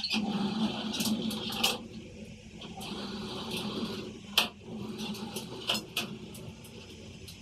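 Borewell drilling rig machinery running steadily, with sharp metal clanks and knocks at irregular intervals.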